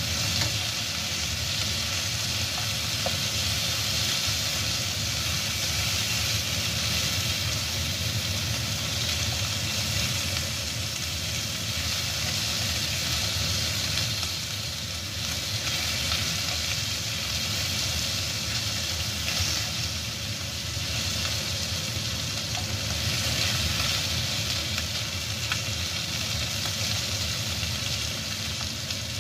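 Pork spareribs sizzling steadily as they fry in caramelised sugar in a wok, with metal tongs now and then scraping and tapping as the pieces are turned.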